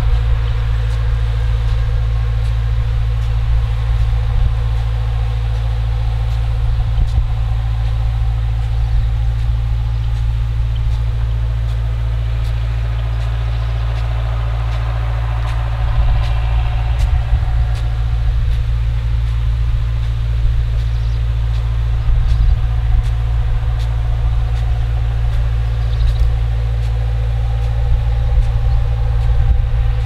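Distant John Deere four-cylinder turbodiesel engine running steadily under load, driving a 1200 gpm irrigation pump that feeds a center pivot at 40 to 45 psi. A constant deep hum with a few steady tones above it.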